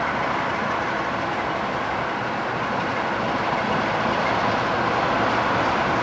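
CFR Class 60 (Electroputere LDE 2100) diesel-electric locomotive with its Sulzer engine, approaching at low speed as a steady engine-and-rail noise that grows slightly louder near the end.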